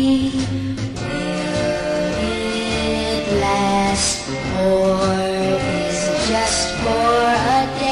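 A 1966 pop song recording plays: a singer over a band accompaniment with guitar.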